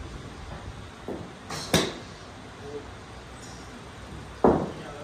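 Sharp crack of a golf club striking a ball at a driving range about two seconds in, then a louder, duller thump near the end.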